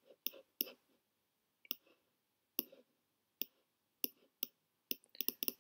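Computer mouse button clicks: a dozen or so short, separate clicks at uneven intervals, with a quick run of several near the end.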